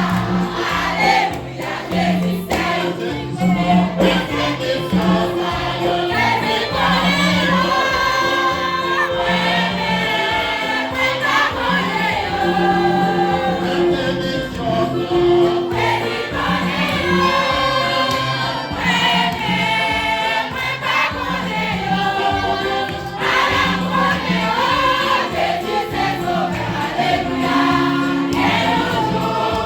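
A choir singing a hymn with instrumental accompaniment, with low bass notes changing about once a second beneath the voices.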